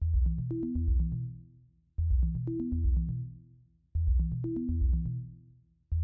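Background electronic music: a drum-machine beat with synthesizer bass and two held tones, one short phrase repeating about every two seconds and fading away each time.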